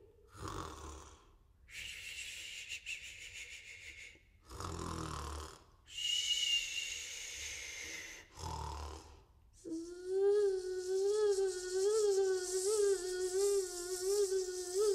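A solo voice imitating snoring: several rasping breaths in and out. About ten seconds in comes a long buzzing 'zzz' held on one wavering pitch.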